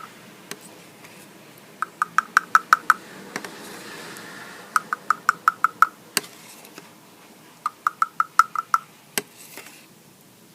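An animal calling in runs of short chirps, about seven a second for about a second, repeating every three seconds or so, with scattered sharp clicks between.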